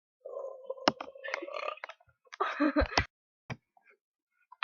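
A person burping: one drawn-out burp at a steady pitch lasting about a second and a half, then a shorter, rougher one. A few sharp clicks fall in between and after.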